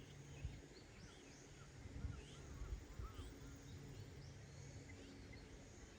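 Faint outdoor ambience with small birds chirping, short scattered calls, over a low uneven rumble with a few soft thumps.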